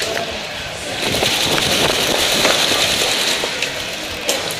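A crackling rush of noise, like an explosion sound effect, that swells about a second in and fades toward the end.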